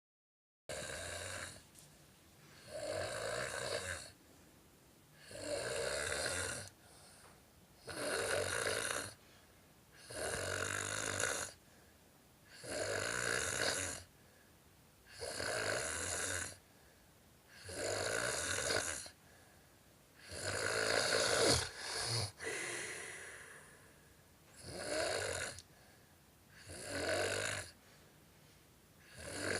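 A person snoring in a steady rhythm, one rasping snore about every two and a half seconds. One longer snore about two-thirds of the way through breaks off abruptly.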